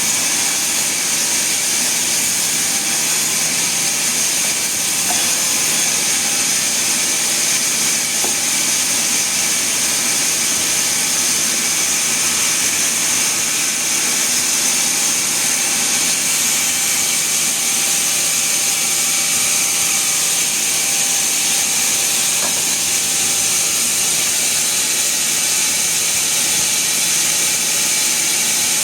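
Sawmill machinery running steadily: a loud, continuous high hiss with no breaks or changes in load.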